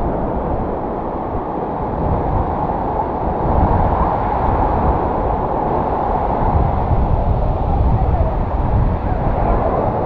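Strong wind buffeting the microphone: a steady, loud rushing noise with a flickering low rumble.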